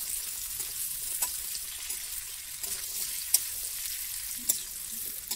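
Pork and potato pieces sizzling steadily as they dry-fry in a steel wok. Now and then there is a sharp click from the metal spoon stirring against the pan.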